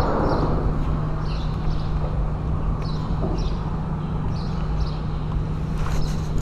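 Steady low hum and wind rumbling on the microphone, with small birds chirping in short, repeated calls about once or twice a second. A brief rustle of handling comes near the end.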